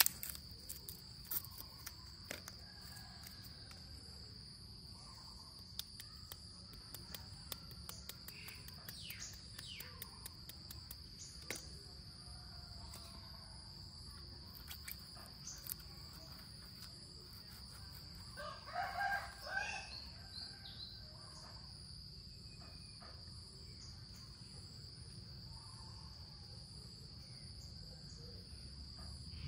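Steady high-pitched insect drone, like crickets, with scattered small clicks; about two-thirds of the way in a rooster crows once.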